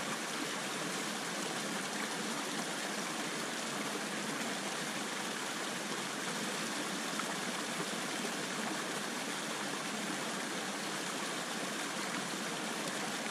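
Small mountain stream tumbling over rocks in a short cascade: a steady rush of running water.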